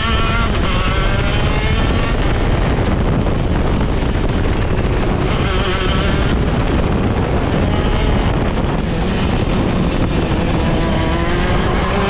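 Shifter kart's two-stroke engine running hard on track, its pitch climbing and dropping as it accelerates and shifts gears, over a loud, steady rush of noise.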